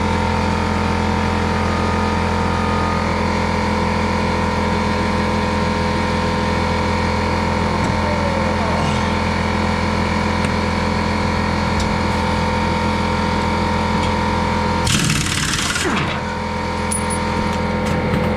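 Steady mechanical hum with several fixed pitches held unchanged throughout, and about fifteen seconds in, a sudden burst of noise lasting about a second.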